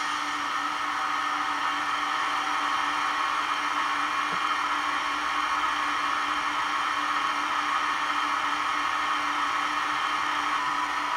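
Steady whir of a standing Eurostar set's onboard equipment (air conditioning and compressor), recorded from the real train and played through the small speaker of a DCC sound decoder in a Hornby OO-gauge Eurostar model.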